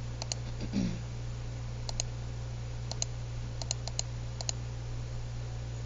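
Computer mouse button clicking, mostly in quick press-and-release pairs, about six pairs at uneven intervals, over a steady low hum. A brief low sound comes about a second in.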